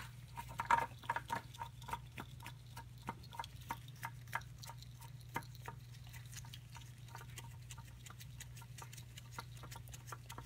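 Light, rapid clicking as a new spin-on oil filter is turned onto its threaded mount by a gloved hand, several ticks a second. The clicks are busiest in the first couple of seconds and then thin out. A steady low hum runs underneath.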